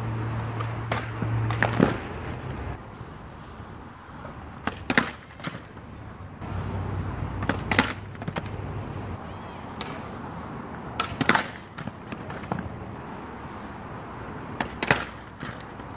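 Aggressive inline skates rolling and grinding on concrete, with about five sharp clacks a few seconds apart as the skates' frames and wheels strike a concrete ledge on grind attempts.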